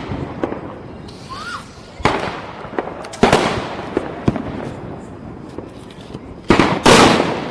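Diwali firecrackers bursting: a few loud bangs, each with a long echoing tail, mixed with smaller sharp cracks, and a pair of bangs in quick succession near the end.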